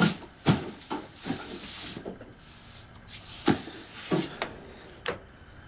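A string of irregular knocks and thumps from objects being handled and set down, with a brief rustle about one and a half seconds in.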